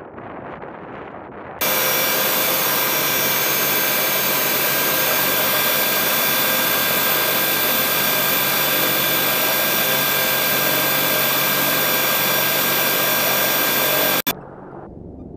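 Steady turbine whine with many high tones from an AH-64 Apache running on the ground. It cuts in suddenly about a second and a half in, after faint wind noise, and cuts off sharply near the end.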